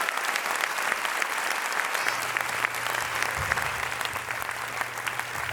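Audience clapping and applauding steadily, a dense patter of many hands.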